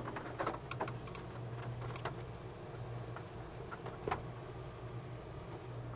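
Scattered light clicks and taps as the RV bathroom's inner skylight is handled and fitted back into the ceiling opening, over a steady low hum.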